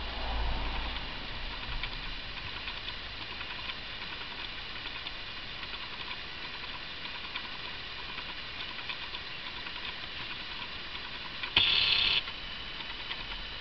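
Cat licking and grooming a small dog's head: faint, irregular wet clicks over a steady hiss, with a sudden loud noise lasting about half a second near the end.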